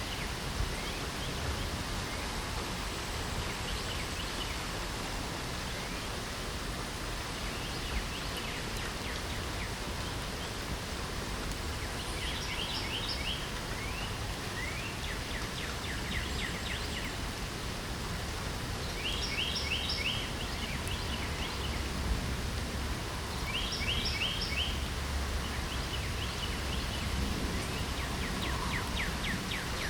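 Steady spring rain with a songbird singing short, fast runs of repeated high notes every few seconds, the clearest ones in the second half.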